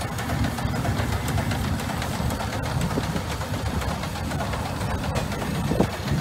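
Marion Model 21 steam shovel's machinery running while it works its loaded bucket: a steady low mechanical rumble with faint scattered knocks.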